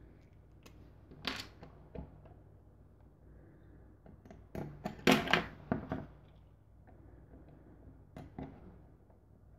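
Small hardware and plastic parts being handled while screws are driven into 3D-printed feet with a screwdriver: scattered clicks and rattles, loudest in a clatter about five seconds in, over a low steady hum.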